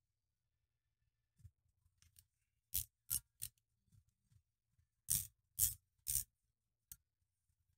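A hand tool working metal screws on a lathe's compound slide: short, sharp metallic clicks and scrapes, three in quick succession about three seconds in, then three louder ones about five seconds in, about two a second, and one last click.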